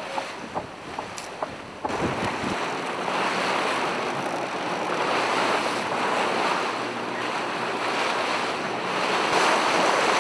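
Sea water rushing and splashing past boat hulls under sail, with wind buffeting the microphone. The rush comes in suddenly about two seconds in, after a quieter stretch with a few sharp clicks.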